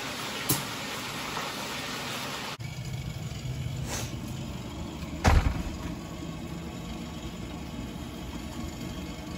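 A steady low motor hum, with a light click about four seconds in and a heavier knock a little after five seconds.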